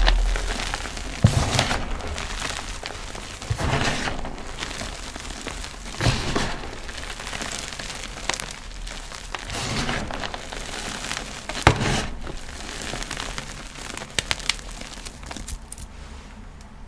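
Blocks of gym chalk crunching and crumbling to powder as they are crushed, with a sharp crunch every couple of seconds over a steady crumbly rustle.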